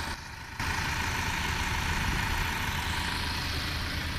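Tractor engine running steadily with a deep low hum while the tractor sits bogged down in mud with a cultivator behind it. It gets louder from about half a second in.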